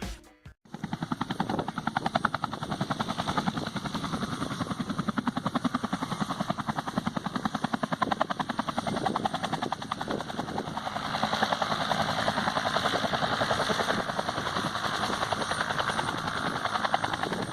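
Helicopter rotor beating in a rapid, even pulse, growing somewhat louder about ten seconds in.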